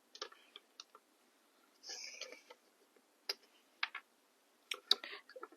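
A few light, scattered clicks and taps, with a brief soft rustle about two seconds in, as small nail-art supplies are handled on a tabletop.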